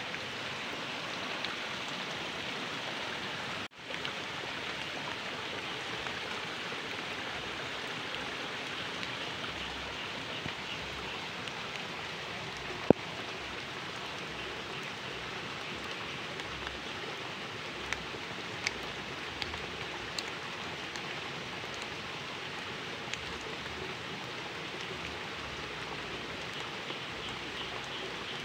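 Steady hiss of water, with one sharp click about thirteen seconds in and a momentary dropout near four seconds.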